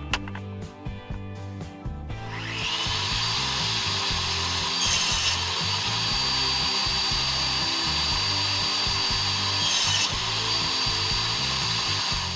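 Bosch table saw starting up about two seconds in and running steadily with a high whine while a crosscut sled carries wood through the blade. Two brief, harsher bursts come about five seconds apart, and the sound cuts off suddenly near the end. Background music plays faintly underneath.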